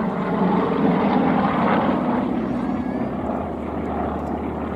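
Piston-engined propeller aircraft droning overhead as a group of small planes flies aerobatics, the engine sound steady and slowly growing fainter.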